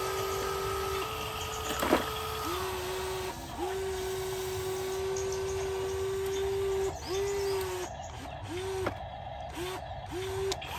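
Toy RC excavator's small electric motors whining as its arm and bucket move, starting and stopping over and over. Each start dips briefly in pitch. One long run comes in the middle and several short ones near the end. A sharp click comes about two seconds in.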